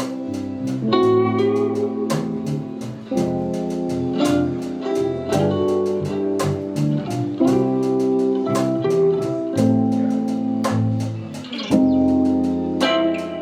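Guitar music: plucked notes and chords played in steady succession, with no singing.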